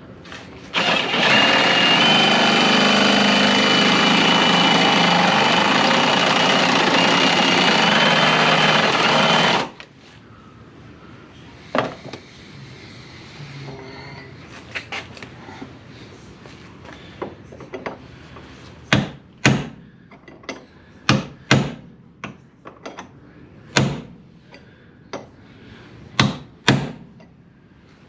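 Angle grinder with a flap disc grinding the steel door hinge pin flat so it can be drilled: a loud, steady grinding noise with a high whine for about nine seconds, then it stops suddenly. Afterwards come a dozen or so scattered sharp knocks and clicks.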